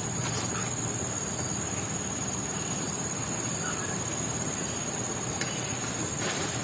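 Steady, high-pitched buzzing drone of forest insects, unbroken throughout, with a couple of faint clicks near the end.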